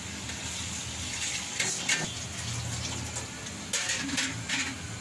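Washed, drained rice tipped from a colander into an aluminium pot of hot liquid and pushed in with a wooden spatula: a wet rushing and splashing, with a few sharper clatters about a third of the way in and again near the end.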